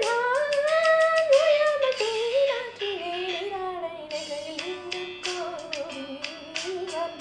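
A woman singing a South Indian melody solo, her voice sliding and bending between notes, over a backing track with clicking percussion.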